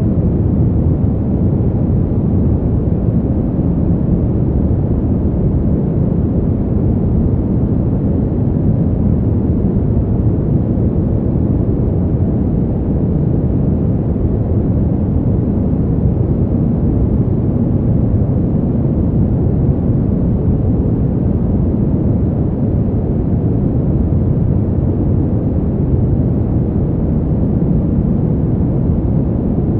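Brown noise: a steady, deep rushing noise, strongest in the low end and falling away toward the highs, with no change throughout.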